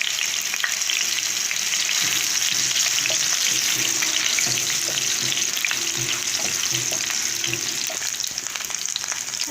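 Pieces of raw green banana sizzling and crackling steadily as they fry in hot mustard oil in a pan.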